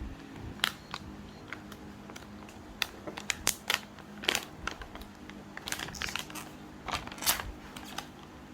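Packaging of a K-pop album being handled during unboxing: irregular crinkling, crackling and sharp clicks, with the loudest crackles in the second half.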